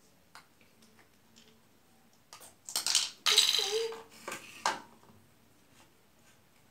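Small plastic toy pieces clicking and clattering as they are handled: a few light clicks, then a louder burst of rattling about three seconds in.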